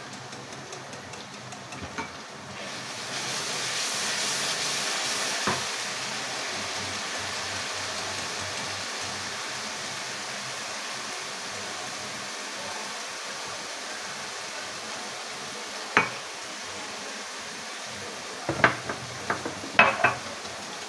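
Wire whisk beating yogurt in a ceramic bowl, with a sizzling hiss from the karhai on the gas flame that swells a few seconds in and slowly fades. Near the end come a few sharp clinks of the whisk against the bowl.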